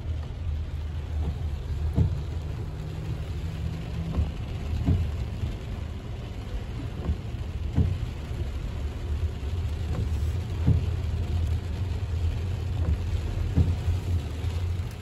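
Heavy rain beating on a car's windshield and body, heard from inside the cabin over the steady low rumble of the car moving through standing water, with scattered sharp knocks every second or two.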